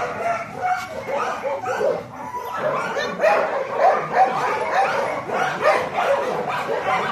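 A dog yipping and barking in rapid, repeated short calls.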